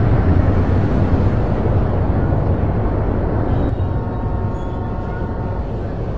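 Steady low vehicle rumble, easing a little about four seconds in, when a few faint steady tones come in.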